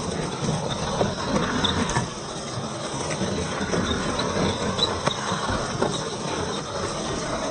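1:10 scale RC4WD Trail Finder 2 rock crawler driving over rough trail ground: a steady grinding rumble of drivetrain and tyres, with scattered small clicks and crunches.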